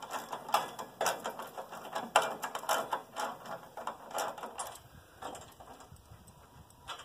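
Irregular metallic clicks and clanks as steel sawmill parts are handled and shifted inside a wooden shipping crate, thinning out and fading near the end.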